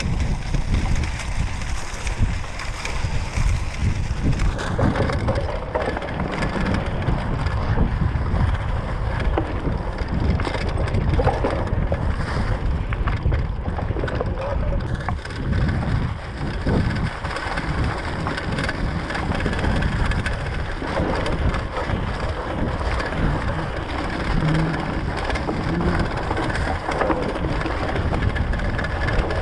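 Mountain bike tyres crunching steadily over dry fallen leaves on a dirt single-track, with wind noise on the microphone.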